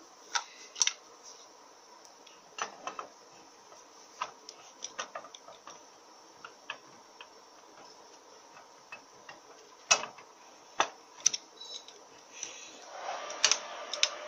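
Irregular metal clicks and knocks of a clutch drum being fitted by hand onto an automatic transmission (Mazda FN4AEL / Ford 4F27E), over its sealing rings. Two sharper knocks come about ten and eleven seconds in, and a short scraping rattle follows near the end as the drum is turned and pressed down onto its splines.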